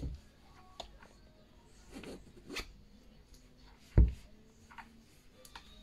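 Zip being done up on a sweatshirt hanging on a clothes hanger, with fabric rustling and small clicks. A single sharp thump about four seconds in is the loudest sound.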